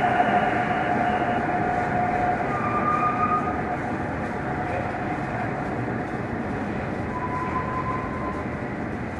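Electric-hauled container freight train passing close by: BLS Cargo Bombardier TRAXX locomotives followed by loaded container wagons, a steady heavy wheel-and-rail noise. A few thin, steady squealing tones come and go over it.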